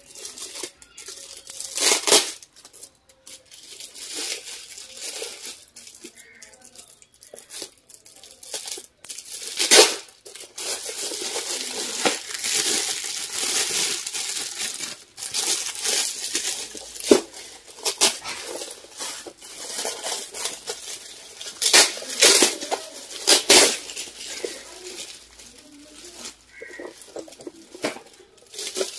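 Crinkled gold metallic foil gift wrap crinkling and tearing as it is pulled off a cardboard box, an irregular crackle with a few louder, sharp rips.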